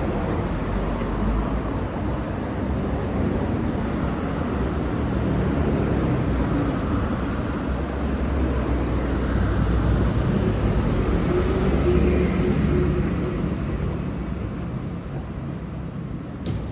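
Low, steady rumble of road traffic going by, swelling to its loudest about twelve seconds in and easing off toward the end.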